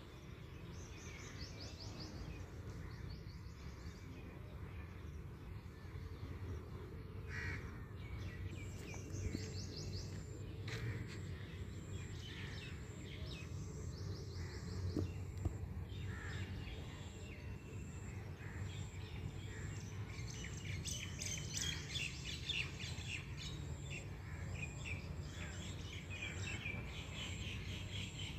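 Birds chirping and calling in short, quick notes, busiest in a flurry near the end, over a steady low outdoor rumble.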